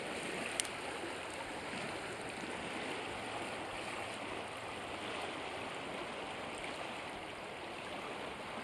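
Fast river current rushing steadily over riffles. A single sharp click about half a second in.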